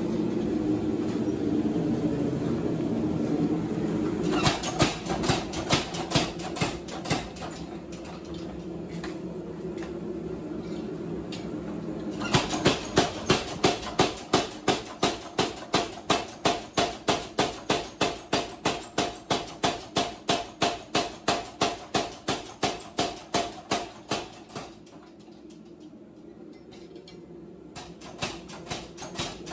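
Power hammer pounding a red-hot railway spike between its dies. A few spaced blows come first, then a fast, even run of about three blows a second for some twelve seconds, stopping and starting again near the end. A steady roar fills the opening seconds.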